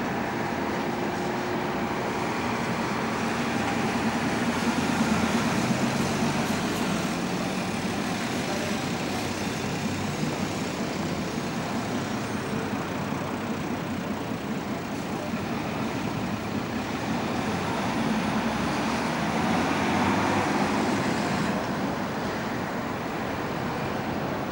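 Street traffic with city bus engines running as the buses pass and turn in the street below. It swells about five seconds in and again around twenty seconds.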